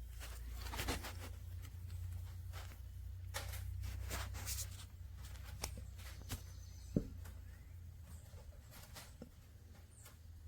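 Scattered light clicks and rustles of handling, with one sharp click about seven seconds in, over a steady low hum.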